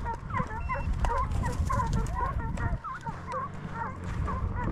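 A pack of deer-driving hounds baying and yelping in chorus, many short rising-and-falling cries overlapping one another as they run a deer. Under it is a steady low rumble.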